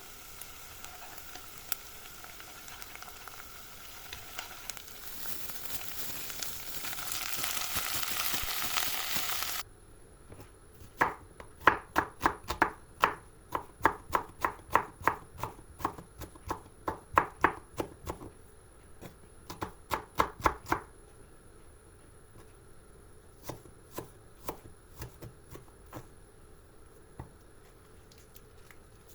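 A knife chopping food on a cutting board in a quick, even run of strokes, two to three a second, for about ten seconds, followed by a few scattered taps. Before the chopping, a steady hiss grows louder and then cuts off suddenly.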